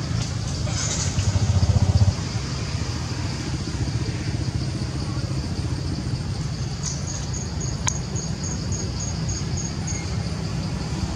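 Steady low rumble of motor traffic, swelling briefly about a second in. About seven seconds in, a run of about a dozen short high pips, some four a second.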